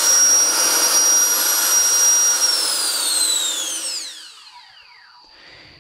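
A 70 mm electric ducted fan runs at full power with a loud, high whine over a rush of air. About two and a half seconds in it is switched off and spins down, its whine falling in pitch until it fades away.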